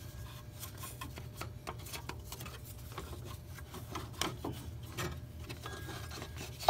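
Rubber accessory belt being worked by hand onto the alternator pulley in a tight engine bay: light rubbing and scraping with scattered small clicks, over a steady low hum.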